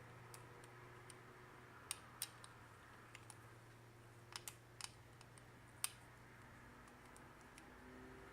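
Small plastic parts of a multimeter being handled: about ten sharp light clicks and taps, scattered and uneven, the loudest a little after the middle, over a faint low hum.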